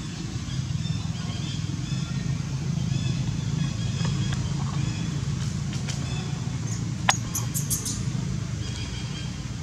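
A steady low engine rumble, with a few short, sharp clicks about seven seconds in.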